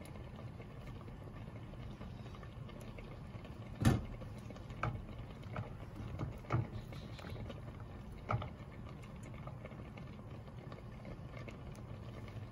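A spatula stirring a pot of milk being reduced, knocking and scraping against the pot about six times over a few seconds, the first knock the loudest, over a steady low hum from the stove.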